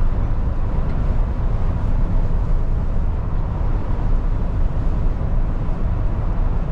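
MAN TGX lorry cruising on a wet motorway, heard from inside the cab: a steady low rumble of engine and tyres on the wet road.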